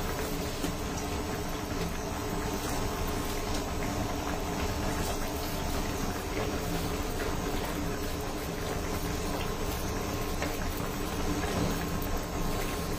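Fish, potato and okra curry gravy bubbling at a steady simmer in a nonstick wok on an induction cooker, with a faint steady hum underneath.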